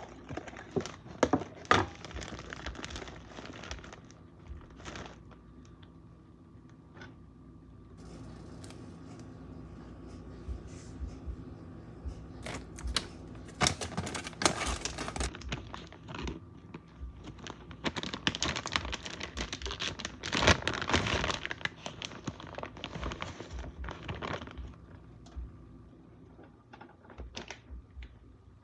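Crinkling and rustling in irregular spells while food is handled, louder about halfway and two-thirds through, over a faint steady hum.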